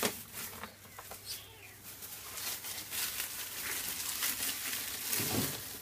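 Rustling handling noise with many light clicks and knocks close to the microphone.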